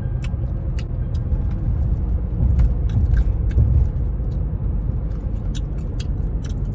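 Road and engine noise heard inside a moving car: a steady low rumble that swells a little around the middle, with scattered small clicks and rattles.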